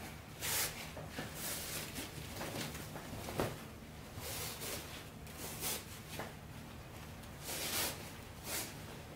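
Dress fabric rustling in soft, irregular swishes as it is bunched and slid along elastic being pulled through the casing with a safety pin.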